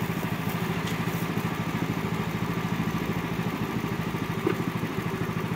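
Small engine of a ride-on miniature diesel-style locomotive running steadily with a fast, even pulse as the train rolls along the track.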